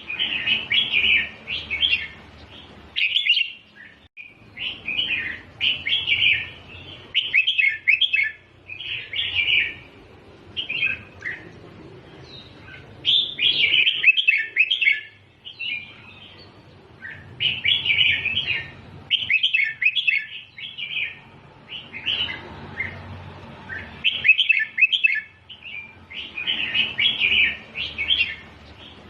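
Red-whiskered bulbul singing a string of short, bubbly whistled phrases, about a dozen, each a second or so long with brief pauses between them: the repeated 'double' (เบิ้ล) song style that keepers play to teach young bulbuls.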